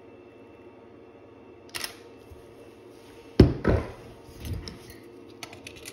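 Camera shutter firing: a sharp double clack about three and a half seconds in, after a lighter click near two seconds, followed by a few smaller clicks.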